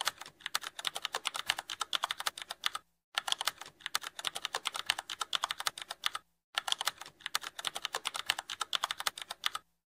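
Keyboard typing sound effect: rapid, uneven key clicks with two brief pauses, about three seconds in and about six seconds in. It matches on-screen text being typed out letter by letter.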